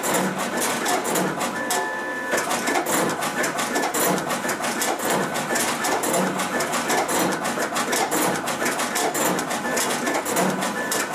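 SCCP B digital finishing machine (slitter, cutter and creaser) running at speed, its vacuum feeder sending sheets through at about one a second. It makes a steady mechanical clatter of rapid clicks over a whir, with a brief break in the clicking about two seconds in.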